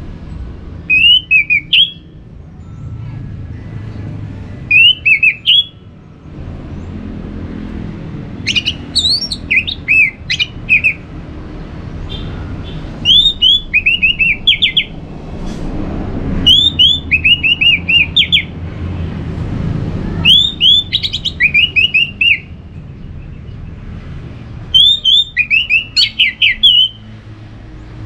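Orange-headed thrush singing loudly in seven separate phrases. Each phrase is a fast run of short, downward-sliding notes lasting one to two seconds, with pauses between phrases, over a low background rumble.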